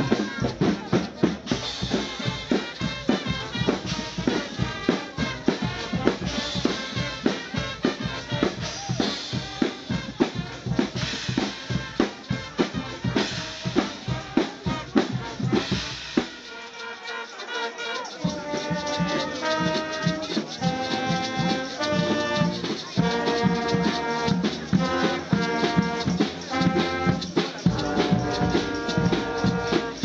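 Drum-and-brass band playing: a drum kit and a row of tenor drums beat a fast, busy rhythm. About halfway through the drums break off for under two seconds, then brass (trumpets and trombones) comes in with held notes over the drumming.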